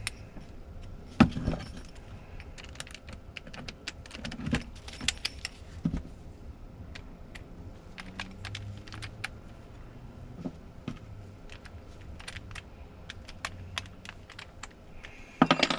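Scattered light clicks and taps of small parts and tools being handled, with a sharper knock about a second in and a few more between about four and six seconds; no motor running.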